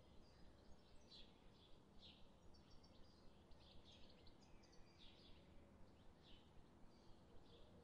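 Near silence: room tone with faint bird chirps scattered throughout.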